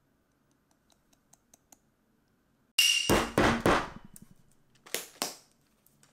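Handling of a protein-shake container: a few faint ticks, then a cluster of sharp knocks and scrapes about three seconds in, and two more short taps near the end.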